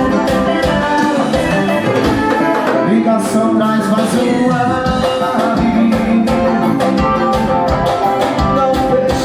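Piseiro/forró band music with a steady beat.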